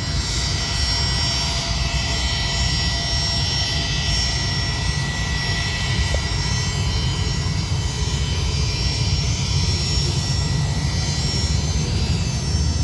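Jet airliner engines running steadily: a low rumble with a thin, high, steady whine.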